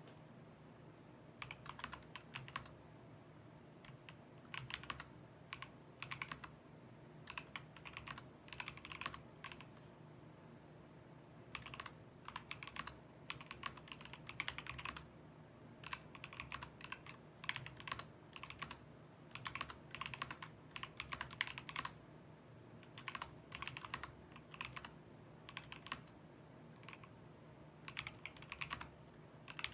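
Attack Shark K86 mechanical keyboard being typed on: quick runs of key clicks in bursts, with short pauses between them.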